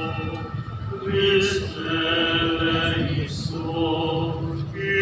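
Voices singing a slow liturgical hymn, with long held notes.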